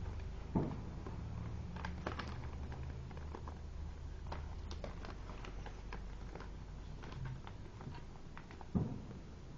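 Origami paper being handled and folded by hand: scattered small crinkles and clicks of the paper being creased, with two louder soft knocks, one about half a second in and one near the end, over a steady low hum.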